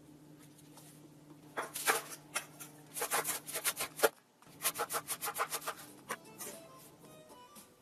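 Chef's knife rapidly chopping Chinese chives on a wooden cutting board: two runs of quick strokes, several a second, with a short pause between. Faint light music is underneath.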